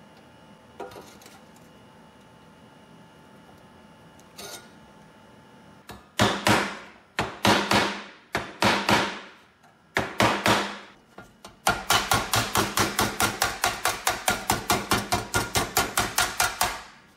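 A hammer striking a wooden block held against the thin pressed-steel body of a 1920s Dayton toy locomotive, straightening the bent sheet metal, with each blow ringing briefly in the steel. It starts about six seconds in with roughly ten spaced blows, then becomes a quick steady tapping of about seven blows a second until near the end.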